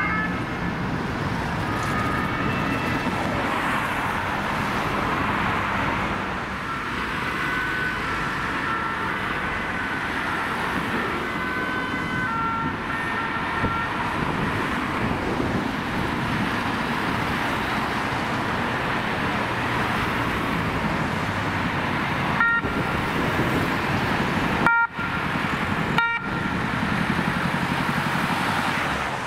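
Emergency ambulances driving through city traffic with their two-tone sirens sounding, alternating steady pitches over the engine and tyre noise. The sound breaks off abruptly a few times near the end.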